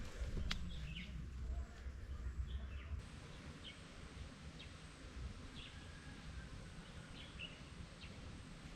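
Quiet rural outdoor ambience with birds giving short, high chirps every second or so. A low rumble under it cuts off about three seconds in.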